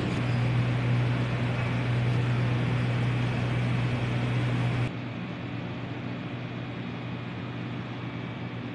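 Steady background hum with a low droning tone under a hiss, which drops suddenly to a quieter, thinner steady hiss about five seconds in.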